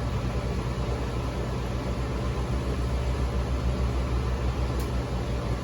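Steady low hum with an even, fan-like rush from running equipment, and a faint tick near the end.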